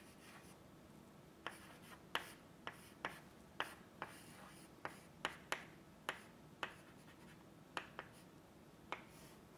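Chalk writing on a blackboard: faint, sharp taps and short scratches as the strokes land, about a dozen at irregular spacing.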